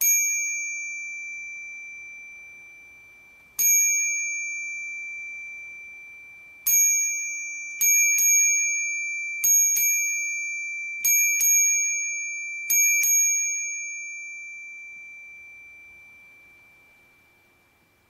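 West Biking retro copper bicycle bell struck eleven times: three single dings, then four quick double dings. Each strike rings on one high note, a D, and fades slowly. It peaks at about 89 dB on a phone's sound meter.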